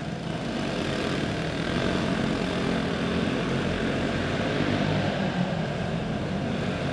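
Several racing karts' single-cylinder clone engines running together in a steady drone during a heat race, getting a little louder about two seconds in as the pack comes by.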